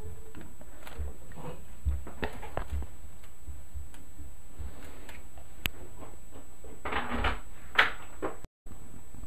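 Soft scratchy rubbing and rustling of paper: a paper tortillon blending graphite on drawing paper and a sheet of tracing paper being shifted over it. There is a sharp click a little past halfway and louder scraping near the end.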